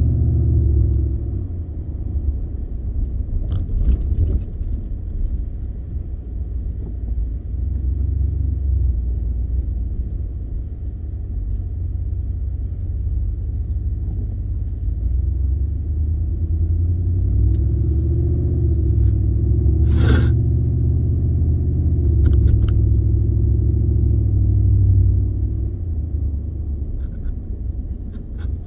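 Inside the cab of a 2015 Ford F-150 with the 5.0 V8 on the road: a steady low engine and road rumble that eases off about a second in and builds again later on. The truck is running smoothly with no hesitation on a new throttle body. A sharp click sounds about two thirds of the way through.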